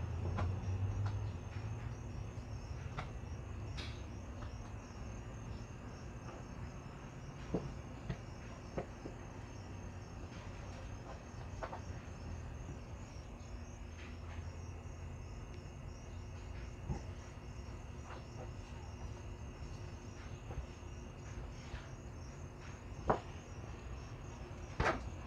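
Crickets chirping steadily, with scattered sharp clicks and scrapes from a pit bull gnawing and pawing a rubber basketball on concrete; the loudest knocks come near the end.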